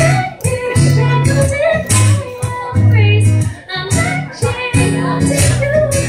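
A woman singing into a microphone to an electric guitar accompaniment, the guitar strumming chords in a steady rhythm under her melody.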